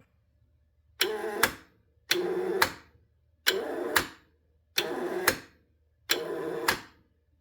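A 2012 Honda Civic starter motor energised five times in short bursts of about half a second: each time a click as it engages, a brief whir, and a click as it cuts off. The inside spins but the drive gear no longer turns, the sign of a failed starter.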